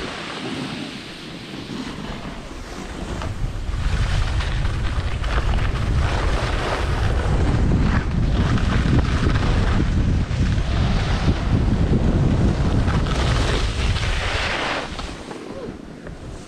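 Wind buffeting an action camera's microphone during a fast ski descent, with the hiss of skis on packed snow. The low rumble grows louder about four seconds in and drops off near the end.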